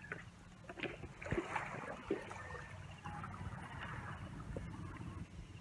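Surf washing over a rocky shoreline, with a low steady rumble beneath and a few light knocks in the first two seconds.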